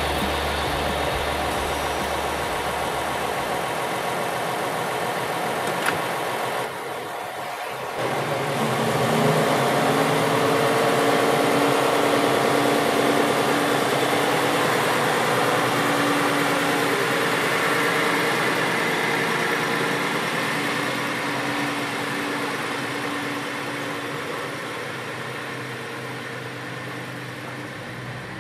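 Diesel engine of a KiHa 40-series railcar idling steadily at the platform, with an even pitched hum. The sound dips briefly about seven seconds in, and the idle comes back slightly louder.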